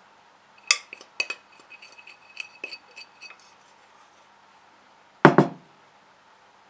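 A spoon scraping and tapping inside a glass measuring jug: a run of clinks with a ringing glass tone, then a single heavier knock about five seconds in.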